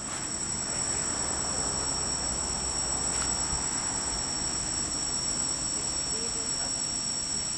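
Homebuilt quadcopter's electric motors spinning steadily at idle while it sits on the ground, a steady high whine.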